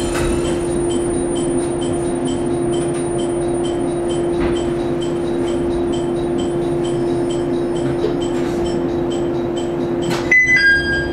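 Cab-end interior of a stationary 115-series electric train car: a steady electrical hum with a fast, regular ticking, about three ticks a second. Near the end a click, then the train's two-note door chime, high then lower, sounds twice.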